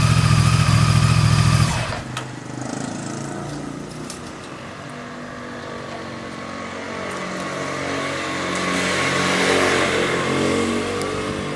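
Honda VTR1000F's 90-degree V-twin running close for about two seconds, then pulling away and accelerating through several gears, its pitch stepping up with each change. It grows louder again around nine seconds in and then fades.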